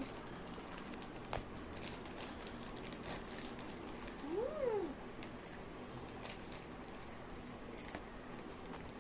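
A cat meowing once about halfway through, the call rising and then falling in pitch; faint clicks and small knocks otherwise.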